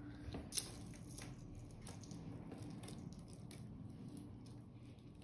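Faint clicks and rustles of thin metal jewelry chains being handled and untangled, mostly in the first second or so, over a low steady hum.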